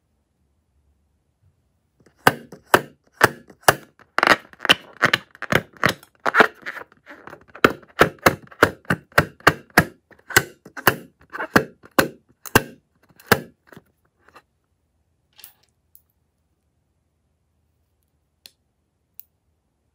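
A filled rubber balloon being squeezed and rubbed between the fingers gives a fast series of sharp clicks and creaks, about two to three a second for some twelve seconds. Near the end come two short snips of scissors at the balloon's neck.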